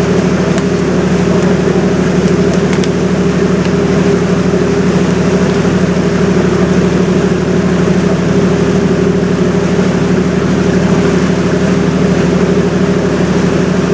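A river cruise ship's engine running steadily, heard on board as a constant low hum with several steady tones over a haze of noise.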